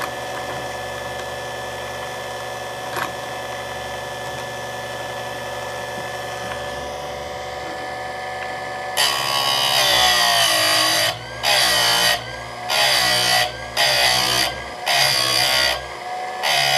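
Buffalo Corp ECSS electric chainsaw sharpener's motor running steadily at first. From about nine seconds in, its grinding wheel comes down on a saw-chain cutter about six times, each a loud, bright grind of a second or two with short pauses between. More metal than usual is being ground off each cutter to restore a badly sharpened chain.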